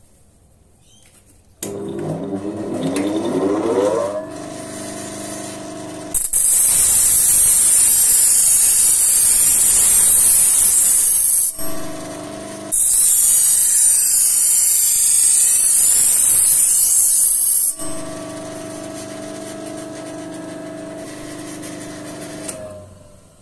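Half-speed bench grinder (1425 RPM) with a 250 mm grit-80 CBN wheel switching on with a rising whine, then running with a steady hum. A knife edge is ground on the wheel in two passes of about five seconds each, a loud hiss of steel on the CBN abrasive; two passes are enough to raise a burr while reprofiling the edge from 20 to 12 degrees. The hum dies away near the end.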